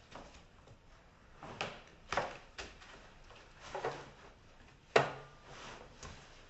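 Hard plastic vacuum-cleaner parts being handled and knocked together during assembly: several separate clacks and scrapes, the loudest and sharpest about five seconds in.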